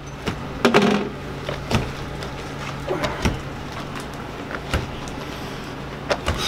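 Candy being pulled by hand over a hook: a handful of soft slaps and knocks at irregular intervals as the mass is thrown over and drawn back, the loudest about a second in, over a steady low machine hum.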